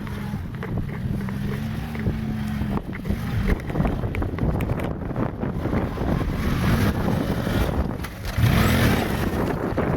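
ATV engine running during a ride over a rough trail, with many short knocks and rattles over the bumps. It gets louder near the end.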